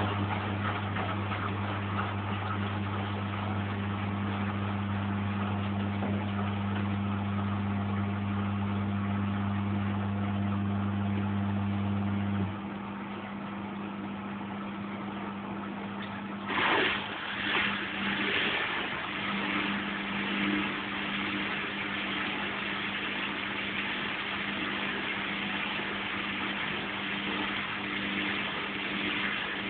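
Lynx 4TS-710A washing machine running an empty final rinse cycle. A steady motor hum stops about twelve seconds in, and a few seconds later a louder rushing noise starts with a few surges before settling into a steady rush.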